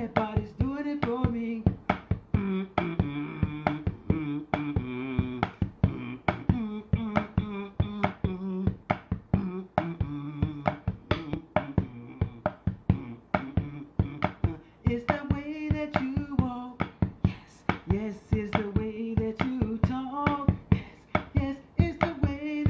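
A man singing a song over a steady beat.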